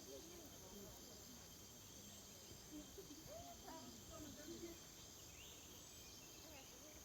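Near silence in a field: a faint steady high insect chirring, with distant voices talking briefly near the start and again around the middle.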